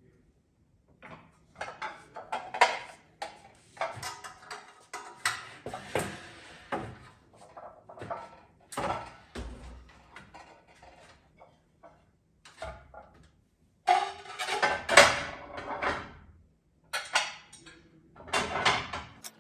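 Kitchen things being handled and set down: irregular clinks, knocks and clatter in short bursts, with brief pauses. The busiest stretch comes about two thirds of the way in, with another burst near the end.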